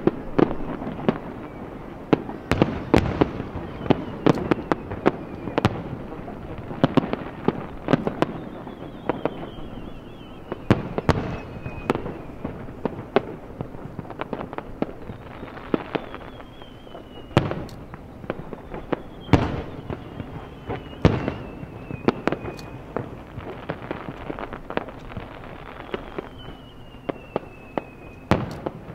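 Aerial firework shells bursting in a dense, irregular run of sharp bangs and crackles, with several much louder booms. A faint high whistle that falls in pitch comes and goes several times.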